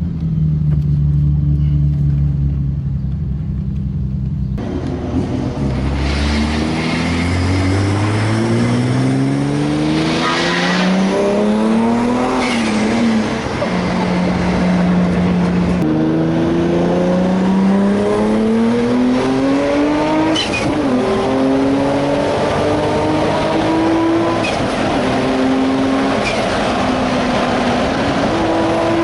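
Nissan Skyline R34 GT-R's 3.2-litre RB straight-six running steadily, then accelerating through several gears about four seconds in, its pitch climbing in each gear and dropping back at each shift, heard from inside the cabin.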